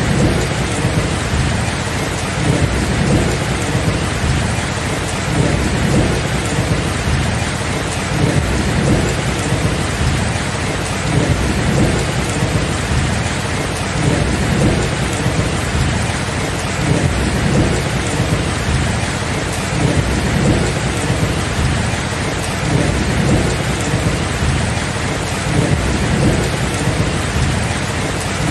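Steady heavy rain with a continuous low rolling rumble of thunder that swells and fades every second or two, with no sharp cracks.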